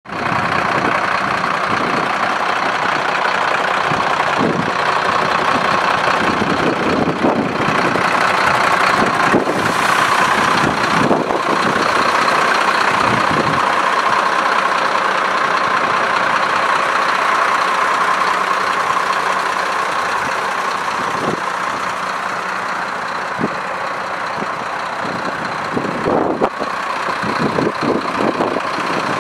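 Mercedes-Benz Atego 1624 truck's diesel engine idling steadily.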